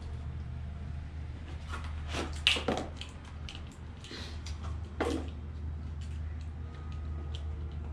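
Handling noises: scattered clicks and rustles with two louder knocks, about two and a half and five seconds in, over a steady low hum.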